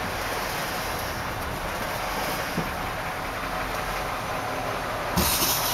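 The 5-litre carbureted V8 of a 1981 Ford F100 idling steadily, just after its first start in a long time. About five seconds in there is a sudden thump with a burst of hiss.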